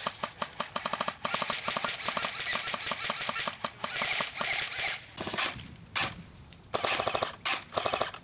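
Airsoft rifles firing full-auto: a long run of rapid clicking shots, about ten a second, then several shorter bursts with pauses between them in the last three seconds.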